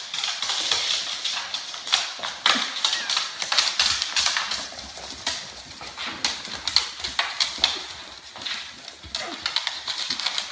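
Puppies' claws clicking on a hardwood floor as they run and play: rapid, irregular clicks.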